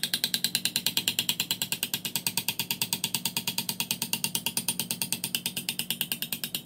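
Hand engraving: a small hammer striking a chisel held against a brass lighter case, in fast, even taps about ten a second.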